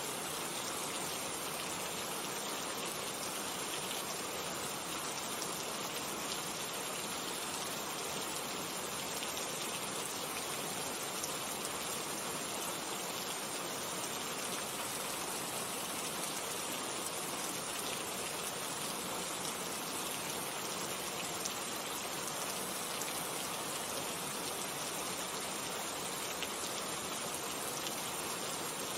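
Steady rainfall: a dense, even hiss of rain with fine raindrop patter.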